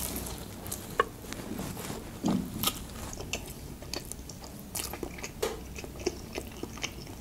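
Biting into a golden lavash pie and chewing it, with a string of short crackles and soft mouth clicks.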